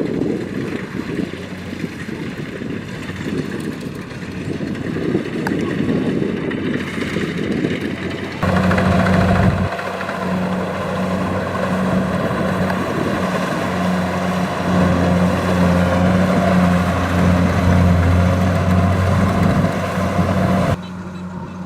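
Kubota DC-70 combine harvester's diesel engine running steadily in the field, with wind rumbling on the microphone at first. About eight seconds in, the sound jumps to a louder, steady engine hum, then drops back abruptly near the end.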